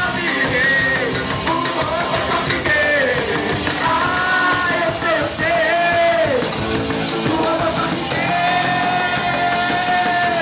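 Live band playing with a singer, whose sung line glides up and down and ends on one long held note.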